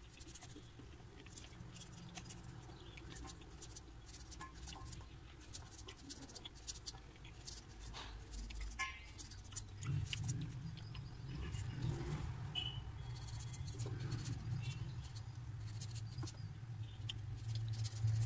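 Knife cutting carrot and okra held in the hand over a steel bowl: a run of small, irregular clicks and snicks. A low hum comes in and grows louder about ten seconds in.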